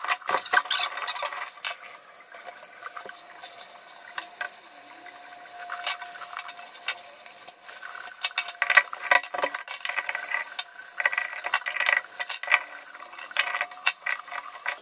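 Metal hand tools clicking, knocking and scraping on a brass shower valve stem as a screwdriver and pliers work it, in many irregular clicks with no steady rhythm.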